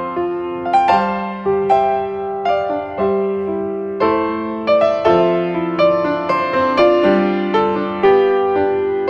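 Background piano music: a slow melody of struck notes, about one or two a second, each ringing and fading.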